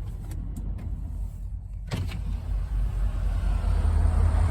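Car idling, heard from inside the cabin as a low rumble. About two seconds in there is a click, and after it a hiss of outside noise grows louder.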